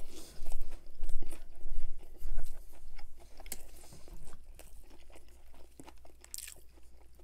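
Close-miked bite into a crispy breaded chicken sandwich: loud crunches in the first couple of seconds, then steady chewing with small wet mouth clicks.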